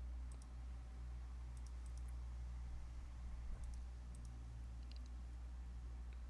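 A few faint, scattered computer mouse clicks over a steady low electrical hum.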